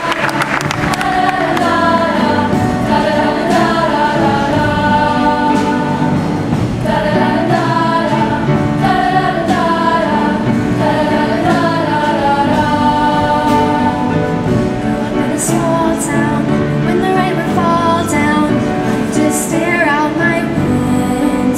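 Singing with musical accompaniment, the voices carrying a melody over sustained chords. Applause dies away in the first second.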